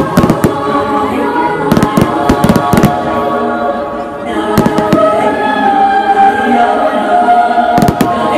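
Fireworks going off in clusters of sharp bangs: a volley at the start, another about two to three seconds in, a few around five seconds, and a pair near the end. Underneath runs the display's music soundtrack with choral singing.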